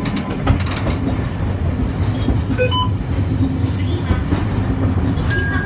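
Nagasaki streetcar running, heard from inside: a steady low rumble with a quick rattle of clicks near the start, and a high ringing tone that comes in near the end.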